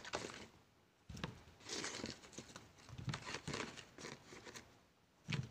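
Soft rustling and light, irregular knocks of small tomatoes being handled and dropped into a plastic colander.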